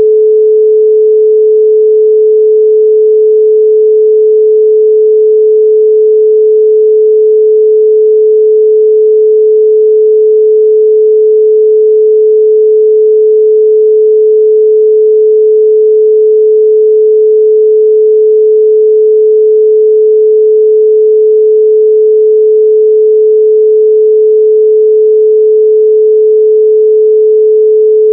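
Steady 432 Hz pure sine tone, loud and unchanging: a single pitch with no overtones.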